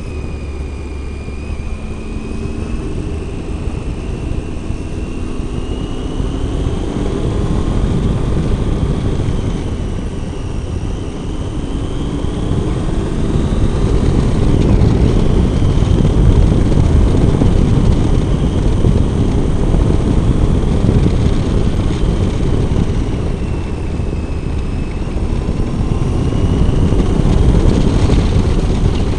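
Triumph Tiger 800 motorcycle's three-cylinder engine running on a twisty road, its note rising and falling as the rider works the throttle through the bends. Heavy wind rumble on the microphone gets louder from about halfway through.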